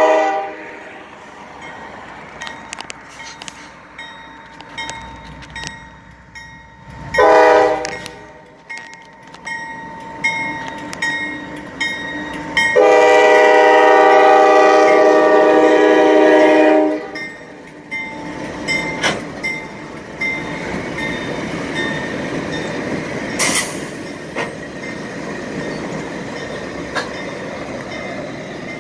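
Norfolk Southern diesel locomotive's multi-tone air horn sounding for a grade crossing: a blast ending just at the start, a short blast about 7 seconds in, and a long blast from about 13 to 17 seconds. After that the locomotives and an inspection car roll past close by, rumbling, with wheels clicking over the rail joints.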